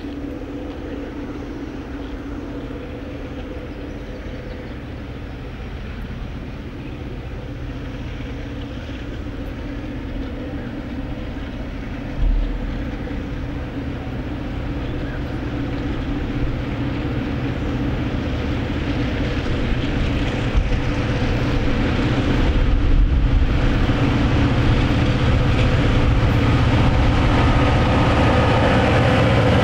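Diesel locomotives of an approaching freight train, their engines' drone growing steadily louder as they near. A brief low thump about twelve seconds in.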